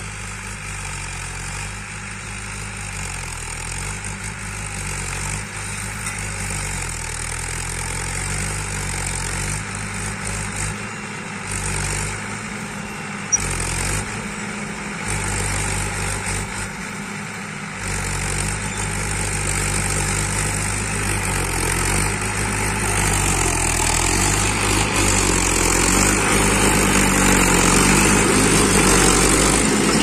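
Swaraj 843 XM tractor's three-cylinder diesel engine running steadily under load as it pulls a tine cultivator through the soil, its pitch shifting a little. There is a single sharp click about thirteen seconds in, and the sound grows louder through the second half.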